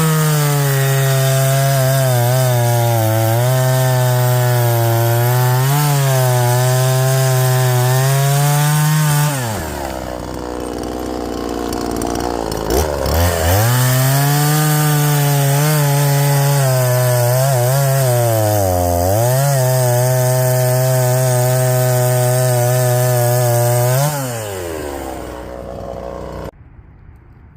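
Small Craftsman two-stroke chainsaw cutting wood at full throttle, its pitch dipping slightly under load. It drops back to idle for a few seconds about ten seconds in, then runs up to full throttle again for a second cut before easing off near the end.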